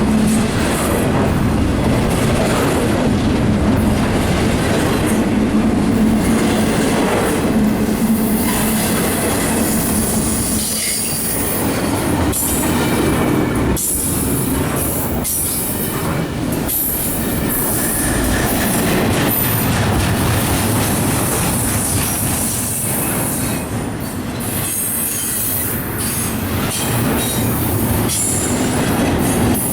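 A CSX freight train's cars rolling past, with wheels squealing and clacking over the rail joints, steady throughout.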